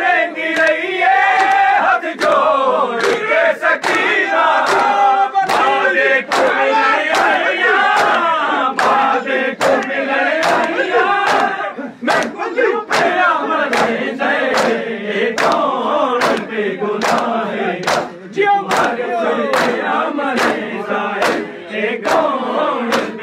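Shia matam: a crowd of men chanting together over the steady rhythm of open hands slapping on chests, a little faster than one slap a second.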